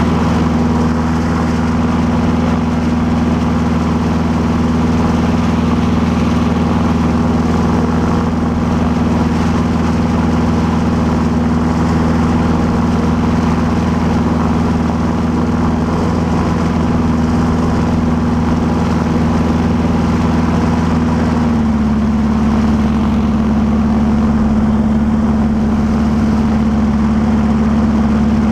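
Gyrocopter engine running steadily at low power while the aircraft taxis on a grass strip. Its pitch steps up slightly about three quarters of the way through.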